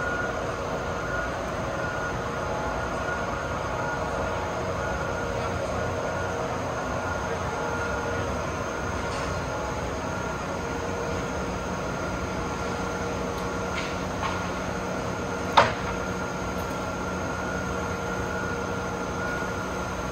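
Steady industrial hum of warehouse machinery with a constant whine, broken once by a sharp clank about three-quarters of the way through.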